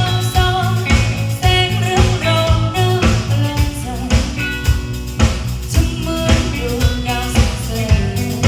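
Band music with a steady drum beat, a bass line and sustained melody notes from guitar or keyboard.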